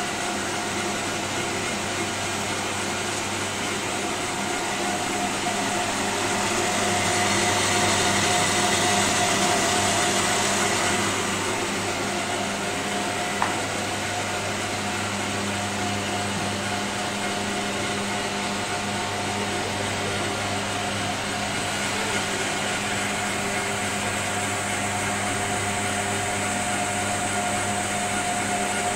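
Steady machine hum with a few held tones, swelling a little about a quarter of the way in and then settling back; a single short click near the middle.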